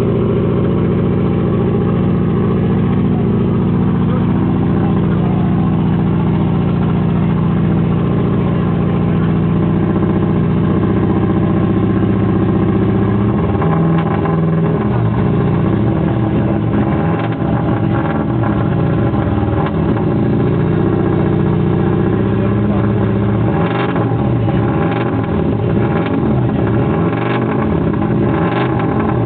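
Subaru Impreza WRC rally car's turbocharged 2.0-litre flat-four running as it warms up. It holds a steady note for about the first half. Then the throttle is blipped and the revs rise and fall, with several sharp cracks in the last few seconds.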